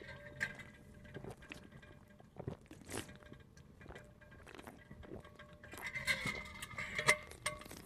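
A person drinking ice water in gulps from a large insulated bottle: quiet swallowing and mouth sounds with scattered small clicks and knocks, which grow busier near the end.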